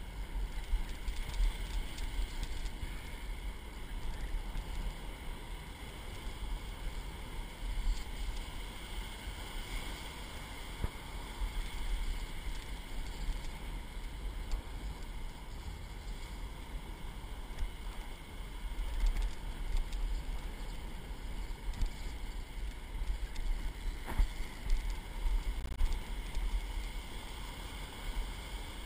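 Wind buffeting the camera microphone as a steady low rumble, over the wash of breaking surf that swells and eases.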